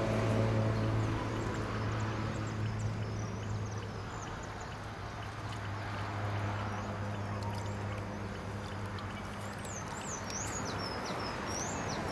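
Small birds chirping in short high calls, in two spells, over a steady low motor hum that is loudest at the start.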